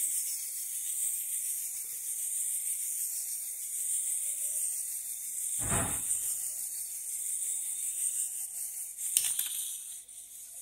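Small clockwork wind-up toy car running, its spring motor whirring steadily. There is a single thump a little over halfway through and a sharp click near the end.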